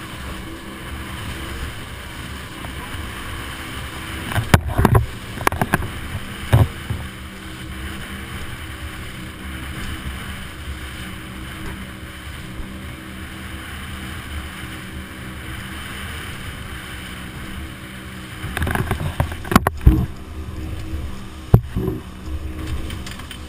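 Twin outboard motors running as a powerboat speeds over open sea: a steady engine drone under rushing water and wind. A cluster of sharp knocks comes about four to seven seconds in and again near the end.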